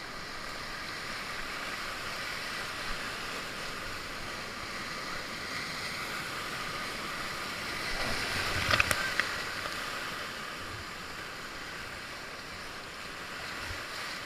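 Whitewater rapids rushing steadily, with a short louder burst of sharp knocks about nine seconds in.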